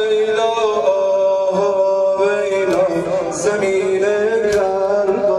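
A man singing a Shia mourning lament (noha) into a microphone, amplified: long held notes that step up and down with small wavers.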